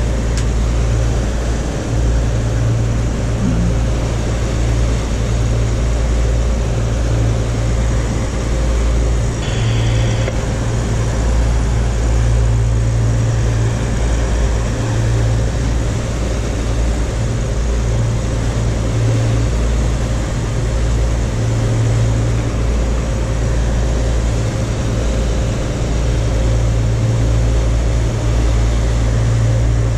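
Steady low drone of a cabin cruiser under way: its engines running at cruising speed along with the rush of wind and water past the hull.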